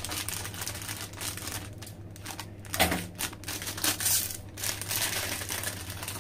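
Small shiny plastic snack packet crinkling and crackling as it is handled, twisted and pulled open by hand.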